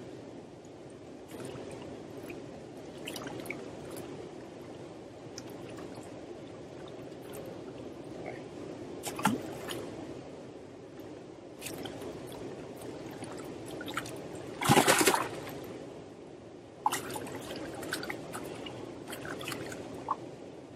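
Steady rush of river water, broken by several sharp splashes as large barbel are handled in the water at the bank; the biggest splash comes about three quarters of the way through.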